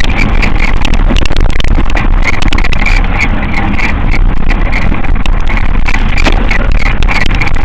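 Mountain bike ridden over a dirt track: loud, steady wind rush on the microphone with rapid clicks and rattles from the bike and its tyres on the dirt.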